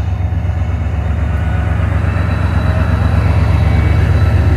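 Diesel freight locomotive's engine running with a deep, steady throb, growing gradually louder.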